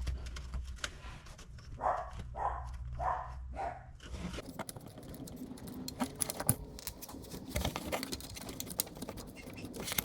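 Small metallic clicks, ticks and scrapes of hand tools and parts being handled while the transmission switch is worked loose. About two seconds in there is a run of five short, evenly spaced muffled sounds, and a low hum stops about four seconds in.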